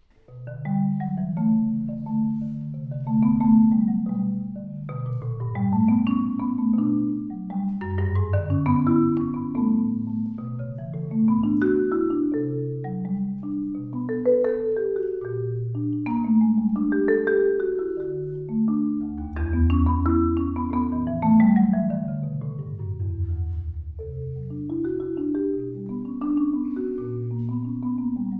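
Solo Marimba One concert marimba played with four mallets, starting right away: low notes held with rapid rolls under a moving line of higher struck notes.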